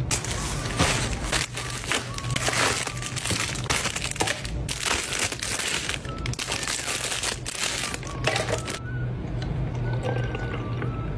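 Packaging crinkling and rustling as it is handled, stopping about nine seconds in.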